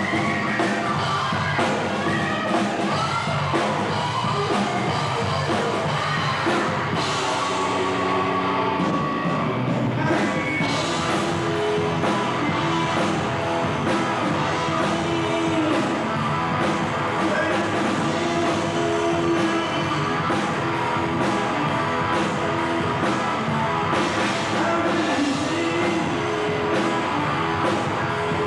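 Live rock band playing on stage, guitar and drums with a singer's voice, steady and loud throughout.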